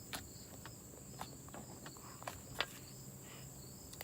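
Faint scattered small clicks and pops of slime being squished and stretched by hand, about half a dozen, over a steady faint high-pitched whine.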